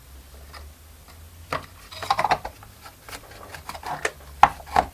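Plastic case of a cordless drill battery pack being handled and pressed together by hand: scattered rubbing and sharp plastic clicks, the loudest clicks near the end, as the halves are pushed to close over the cells inside.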